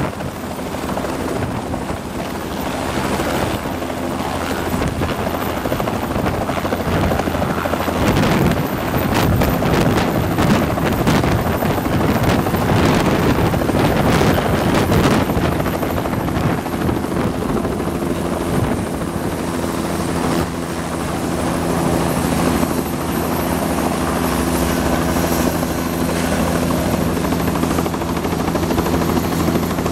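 Close-range helicopter turbine and main-rotor noise. A Bell 206L LongRanger hovers down onto the pad, loudest during the approach, then settles into a steadier running tone with its rotor still turning. Later an Airbus H125 Esquilo is running in flight.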